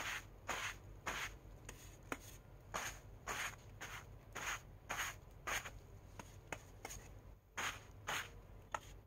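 Bristles of a small hand broom, loaded with green paint, raked across a white Tyvek coverall: short brushing strokes about two a second, with a pause of about a second shortly before the end.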